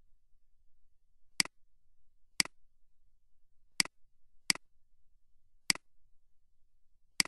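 Six separate clicks of a computer mouse button, irregularly spaced, as files are switched and code is selected on screen.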